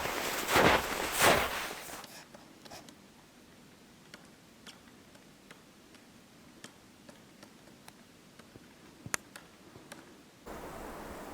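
A few loud rustling scrapes in the first two seconds, then quiet with scattered small clicks and ticks, one sharper click about nine seconds in. A steady hiss comes in suddenly near the end.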